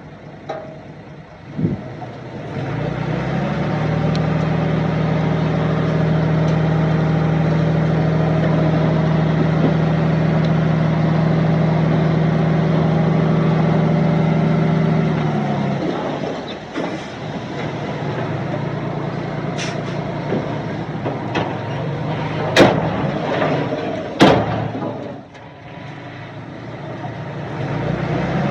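Heavy diesel construction-machine engine revving up about two seconds in, held high and steady under load for roughly thirteen seconds, then dropping back to a lower running speed. Several sharp knocks or clanks come in the later part.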